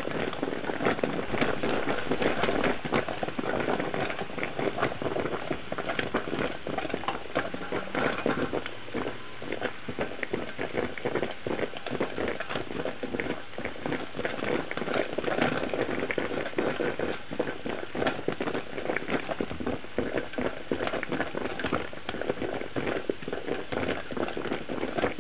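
Stainless steel stovetop coffee percolator perking: a dense, irregular run of small pops and clicks as boiling water is forced up the stem into the glass knob.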